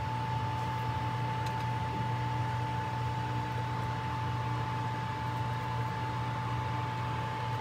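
Steady hum of a running appliance, with a constant high-pitched whine over it.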